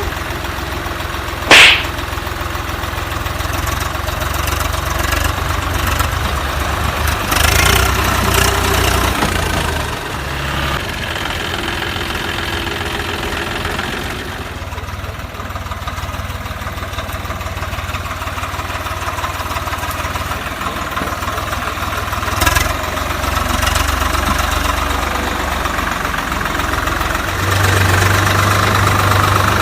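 Vehicle engine idling steadily, with a loud sharp bang a couple of seconds in and a smaller knock about three-quarters of the way through.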